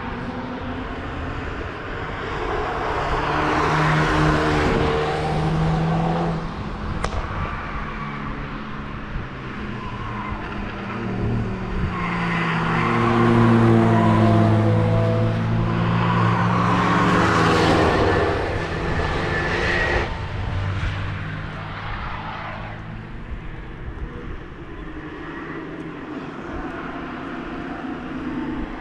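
Cars passing one after another at speed, their engines rising and falling as each goes by. The loudest pass comes about halfway through.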